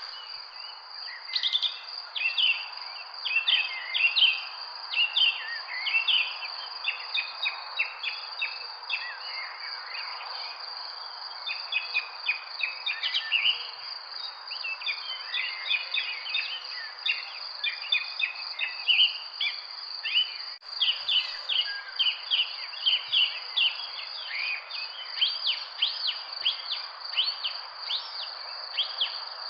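Birds chirping and calling in many quick, overlapping short notes over a steady, high-pitched insect drone.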